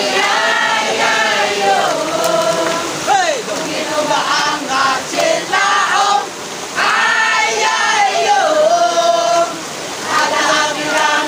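A large group of men and women singing a song together in chorus, in phrases with short breaks between the lines.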